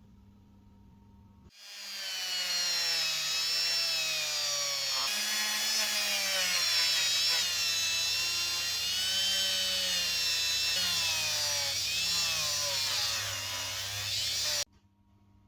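Electric power tool, such as a drill or rotary buffer, spinning up and running. Its whine rises and falls as it is worked against a part. It cuts off suddenly near the end.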